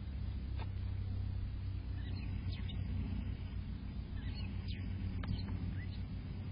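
Outdoor ambience: small birds chirping a few times in short bursts, over a steady low rumble.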